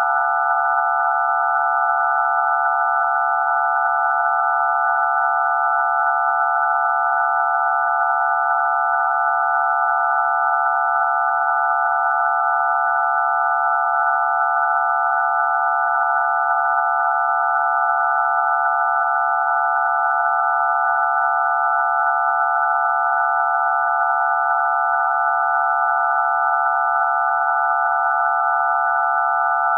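Telephone DTMF dial tones for digits 0 to 9 sounded all at once as one steady chord of pure tones, loud and unchanging.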